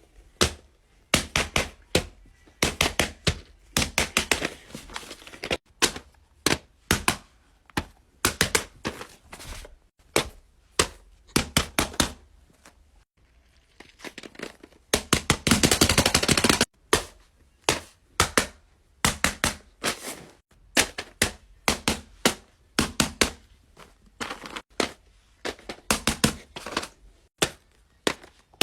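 Plastic fidget toys being clicked and popped by hand: sharp snaps in quick, irregular runs, with a dense rattling stretch about halfway through.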